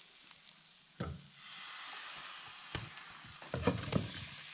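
Pancake batter sizzling on a hot round griddle pan as a steady hiss, with a sharp knock about a second in and a few light clicks near the end.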